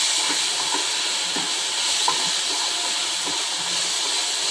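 Onion, tomato and capsicum masala sizzling in a non-stick kadai while a wooden spatula stirs it: a steady frying hiss with light scrapes and taps of the spatula against the pan every so often.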